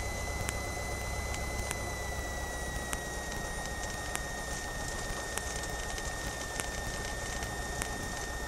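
Cessna 172M's four-cylinder Lycoming engine running at low power with the propeller turning, heard from inside the cockpit while taxiing. A steady high whine dips slightly in pitch about two seconds in, and faint ticks come about once a second.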